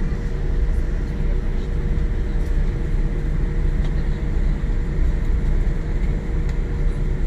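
Steady cabin noise inside a Boeing 787-9 airliner: a deep, even rumble with a constant mid-pitched hum running through it, neither rising nor falling.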